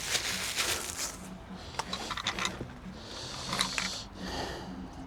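Faint handling noises of parts being worked by hand: light rubbing and a few scattered small clicks.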